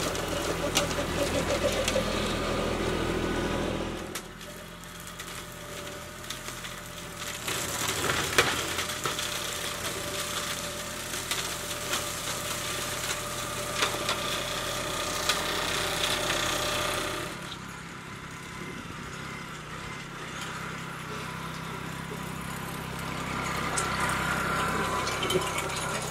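Kubota B2261 compact tractor's diesel engine running, driving a front PTO flail mower. The level changes in steps: it drops about four seconds in, runs louder and harsher for roughly ten seconds in the middle, then drops back.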